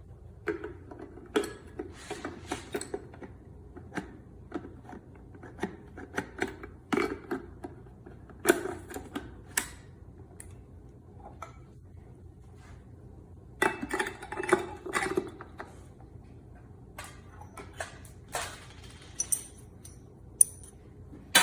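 Hard objects clinking, clicking and knocking in irregular clusters as they are handled, like metal parts being set down and fitted together, over a faint low hum.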